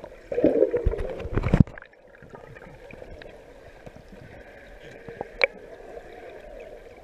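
Water sloshing and gurgling, loudest in the first second and a half, then a faint steady background with a single sharp click about five and a half seconds in.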